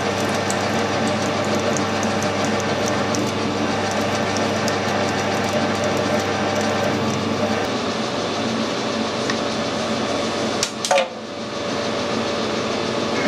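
Metal lathe running steadily with a twist drill in the tailstock chuck cutting into a spinning steel bar, motor and gearing giving a steady whine, with light ticking in the first few seconds. About three-quarters of the way through comes one sharp metallic clink with a short ring, and the running sound dips briefly before settling again.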